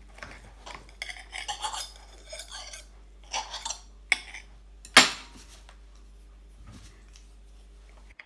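Metal cutlery scraping and clinking against a plate as an omelette is cut into, with a sharp, loud clink about five seconds in.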